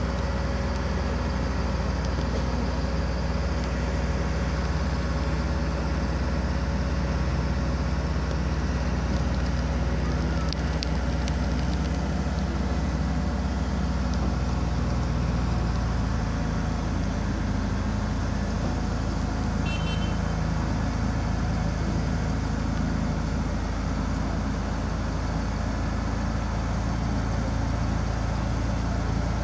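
Hydraulic excavator's diesel engine running steadily close by while it holds a precast concrete drainage segment on slings; the engine note shifts about halfway through.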